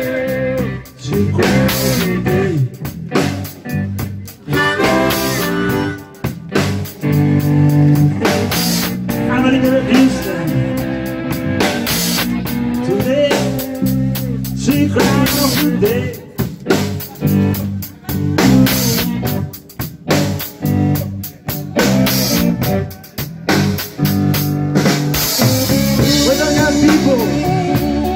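Live blues band playing: a man singing into a microphone over electric bass, guitar and a drum kit.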